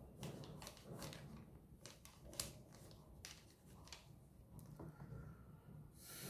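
Faint scratching of a pen drawing on sketchbook paper in short, irregular strokes, with a brief rustle near the end.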